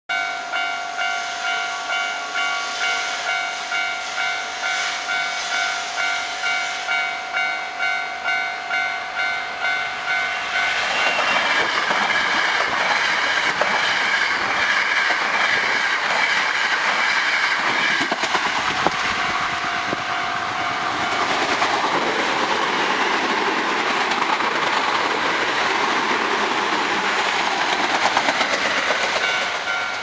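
Japanese level-crossing alarm bell ringing in quick strokes about twice a second. About 11 s in, a Hankyu 1300 series electric train passes close by, its wheels and motors loud over the bell for about seven seconds. After it, the bell is heard faintly again before a second train, an Osaka Metro 66 series, is heard drawing near.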